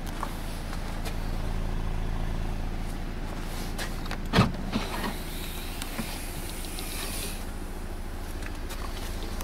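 Audi A3 2.0 FSI inline-four petrol engine idling steadily, heard from the rear of the car. A sharp clunk about four seconds in as the boot lid is unlatched and opened.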